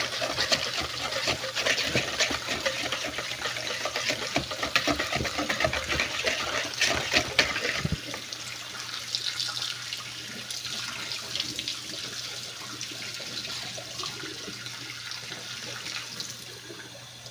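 A wire whisk beating a wet yogurt-and-oil dough mixture in a plastic bowl: fast, wet scraping and clicking, louder for the first half and softer after about eight seconds.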